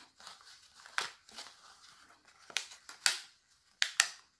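Thin clear plastic cup strips clicking and crackling as fabric sock loops are woven and pressed onto them: a handful of sharp clicks, the loudest about three seconds in and twice near the end.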